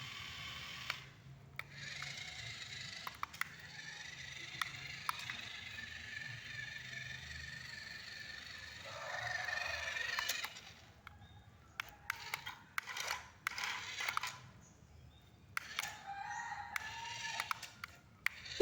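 Small electric gear motors of a toy RC forklift whirring in stretches with a high thin whine, broken up by plastic clicks and short pauses.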